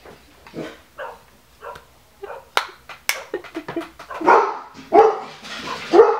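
A dog barking in short, loud barks, several times, the strongest coming in the second half, with two sharp clicks near the middle.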